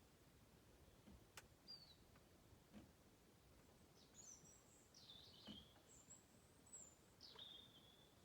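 Faint bird calls: a short falling chirp about a second and a half in, then a cluster of high chirps and calls in the second half, ending in a longer held note. A few faint soft knocks fall between them.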